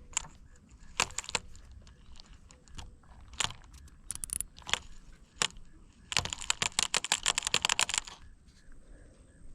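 Fishing reel being handled and worked on: scattered sharp clicks and taps, then a rapid run of clicking lasting about two seconds, as from the reel's mechanism being turned. The reel is broken and not working properly.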